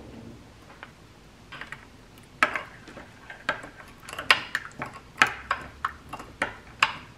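A spoon stirring soy-sauce seasoning in a small glass bowl, clinking against the glass in quick, irregular taps, starting about two and a half seconds in, with a few fainter clicks before.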